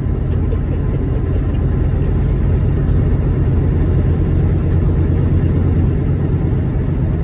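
Semi-truck's diesel engine and road noise heard from inside the cab: a steady, loud, low drone while cruising down the highway.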